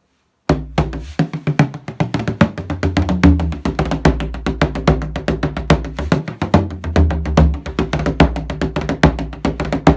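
18-inch Brendan White tunable bodhrán played with a tipper in a fast, continuous run of strokes, starting about half a second in. The drum's low tone shifts in pitch as it is played, and the playing stops right at the end, leaving a short ring.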